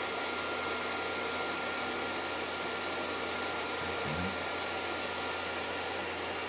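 Steady hiss over a low electrical hum, with a faint steady high tone running through it.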